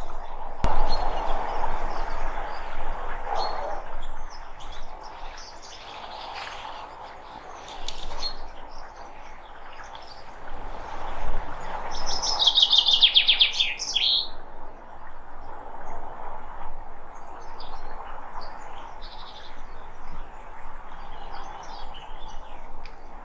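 Wild birds chirping and calling, with scattered short high notes and one loud, fast trill of rapidly repeated, falling notes about twelve seconds in, over a steady background hiss.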